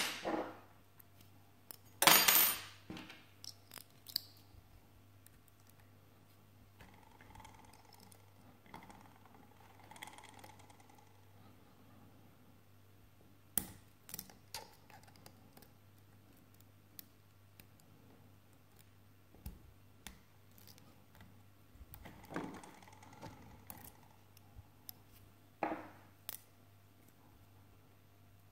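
Metal lock-picking tools working an Avocet ABS 3-star euro cylinder lock: scattered small clicks and scrapes of the pick and tension wrench in the keyway, with a few louder metallic clinks and rattles, the loudest about two seconds in.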